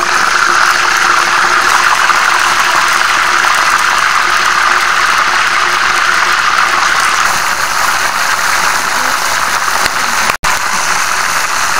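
Pot of blue swimmer crabs cooking in bubbling liquid: a steady, loud bubbling hiss, cut off for an instant about ten seconds in.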